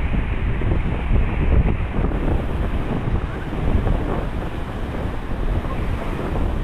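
Typhoon-driven storm waves churning and breaking against a seawall and pier, a steady loud rush, with strong wind buffeting the microphone.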